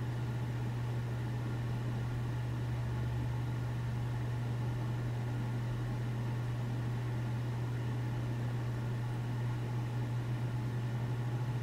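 Steady low hum with a faint hiss over it, unchanging, with no other events.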